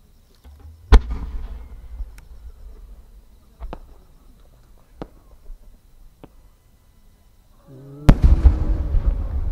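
A 10-go (about 30 cm) aerial firework shell. It launches from the mortar with a sharp boom about a second in. A few fainter cracks follow while it climbs, then it bursts with a loud bang about eight seconds in, and a long low rumble echoes after it.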